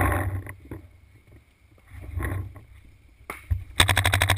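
A paintball marker fires a rapid string of about ten shots, about twelve a second, near the end. Before that there are scattered knocks and rustling from handling the gun against an inflatable bunker.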